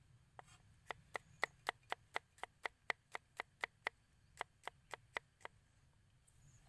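Cleaver slicing garlic cloves on a wooden chopping block: a steady run of sharp knocks, about four a second, stopping near the end.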